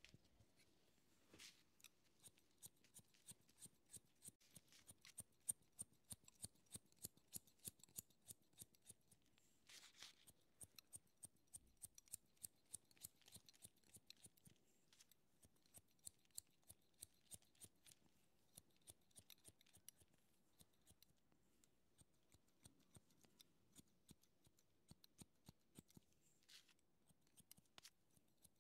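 Barber's scissors snipping through hair in quick runs of crisp snips, several a second, broken by a few brief soft swishes.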